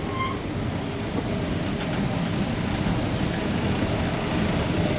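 Steady rumble of the vintage 1909 electric rack locomotive no. 53 standing with its equipment running, slowly growing louder. A brief high chirp comes just after the start.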